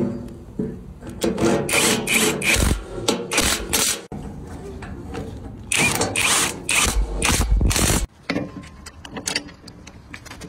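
Cordless power tool driving in the mounting bolts of coil-over rear shock absorbers on an electric scooter frame, running in two long bursts of rapid hammering strokes, the first starting about a second in and the second about six seconds in, followed by lighter clicks of metal parts being handled.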